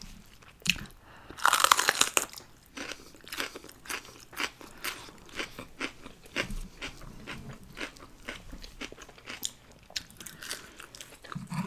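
Close-miked chewing of crisp fries: a loud crunching bite about a second and a half in, then steady crunchy chewing at about two chews a second.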